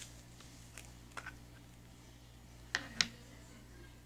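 Faint handling noise from a phone held in the hand: a few soft clicks and rubs, with two sharper clicks near the end, over a low steady hum.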